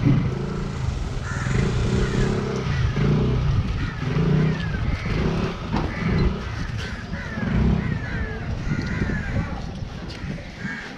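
Crows cawing again and again over a low background rumble, with a couple of sharp knocks about halfway through.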